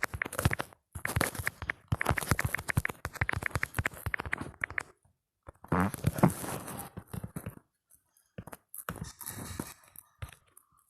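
A smartphone's on-screen keyboard click sound, tapping rapidly in runs of several taps a second with brief pauses. About six seconds in a short, different, fuller sound breaks in, and the taps thin out to a few scattered ones near the end.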